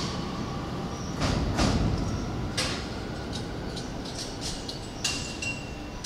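E231-series electric commuter train pulling away from the platform, with a low running rumble and several sharp clacks from the wheels over rail joints, fading as the train recedes.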